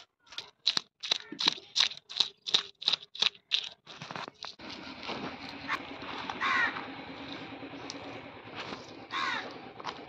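A knife scraping the scales off a whole rohu fish: quick separate strokes, about three a second, then a more continuous scrape. A crow caws twice over it.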